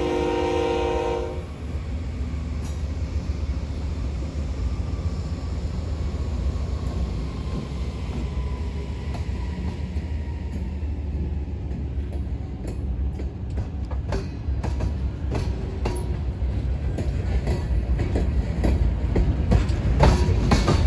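A freight train's locomotive horn sounding a chord of several notes that cuts off about a second in, then the train rumbling steadily, with sharp wheel clicks over rail joints growing more frequent and louder near the end.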